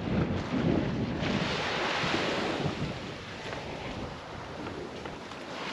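Small waves washing up onto a sandy beach, one surging in and hissing away about a second in, with wind buffeting the microphone.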